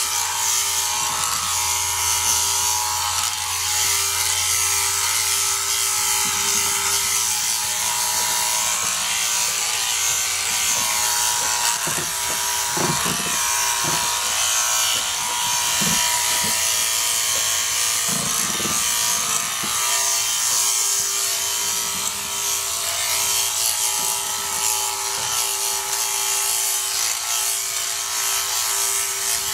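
Handypiece Pro portable sheep-shearing handpiece running steadily with a constant buzzing hum as its comb and cutter clip dirty wool from around a sheep's tail and crutch. A few dull knocks come in the middle.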